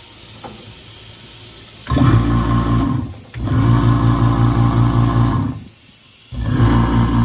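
Kitchen sink garbage disposal motor switched on three times, each time giving a loud rough hum-buzz for one to two seconds before cutting off, with water running into the sink before it. The disposal is reported as not working properly and sounds horrible, a unit judged to need replacing.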